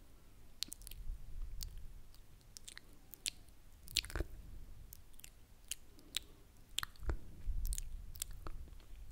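Close-miked ASMR mouth sounds: irregular wet clicks and lip smacks right at the microphone, a few every second, the sharpest about four seconds in.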